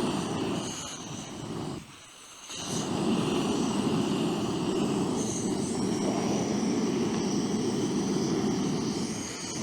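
Portable gas canister stove burner running with a steady rushing flame. The flame sound drops away briefly about two seconds in, then burns steadily again.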